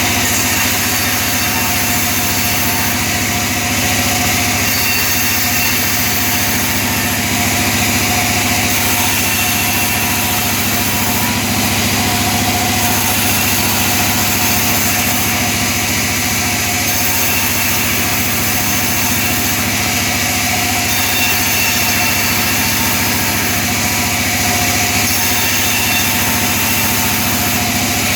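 Sawmill saw running steadily while ripping tisuk wood into roof battens: a loud, continuous mechanical drone whose high hiss changes slightly about every four seconds.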